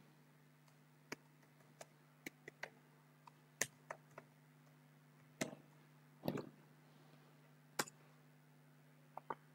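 Computer keyboard keys clicking faintly as a password is typed: about fourteen sharp, irregularly spaced keystrokes.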